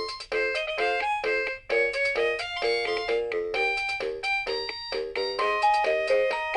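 Anpanman Pika Pika toy keyboard playing a melody in bright electronic tones, short notes following one another quickly.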